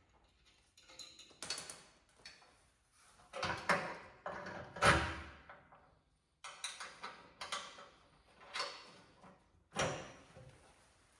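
A series of metal clanks and rattles, about eight separate knocks with short ringing tails, the loudest about five seconds in: steel parts of a plow's back drag blade and its springs being handled and fitted.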